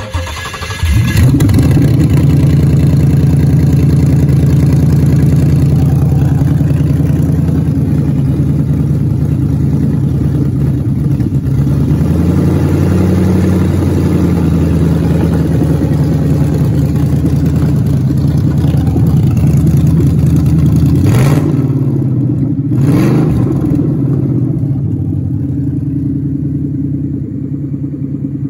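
Gen3 Ford 5.0 Coyote V8 cold-starting on a test stand and running at a steady fast idle. It is revved briefly twice, about 21 and 23 seconds in, then settles back to idle.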